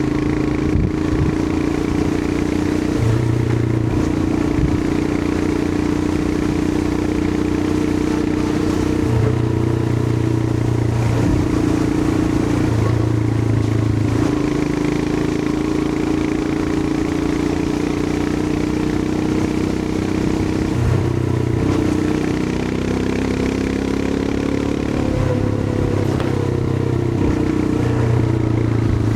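Royal Enfield Himalayan 411's 411 cc single-cylinder engine running on the move. Its note shifts and steps up and down several times as the throttle opens and closes.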